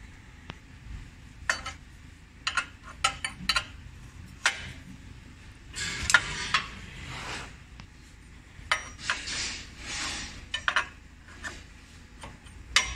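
Metal wrench clinking and scraping on bolts while the cylinder head of a truck's air brake compressor is being unbolted: sharp clinks in irregular clusters with short scraping runs between them.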